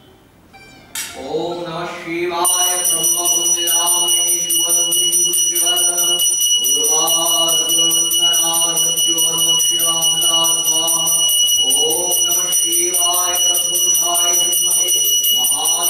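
Puja hand bell rung rapidly and continuously, a steady high ringing with a fast flutter that starts about a second in. Under it, a lower steady-pitched sound comes in three long stretches of about four to five seconds each.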